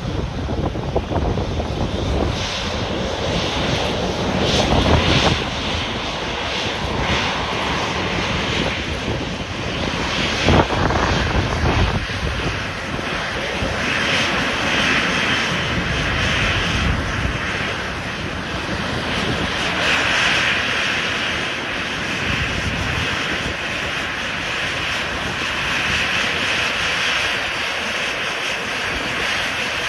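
Embraer E190's twin turbofan engines running at taxi power as the jet rolls slowly toward the listener, a steady jet hiss that grows stronger past the middle. Wind gusts on the microphone in the first part.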